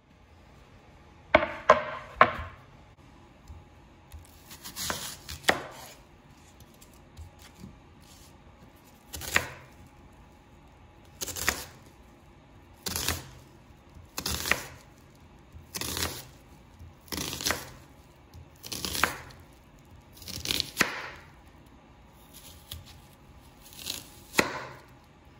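Chef's knife slicing through a peeled onion on a wooden cutting board, one separate cut at a time, coming regularly about every one and a half seconds in the second half.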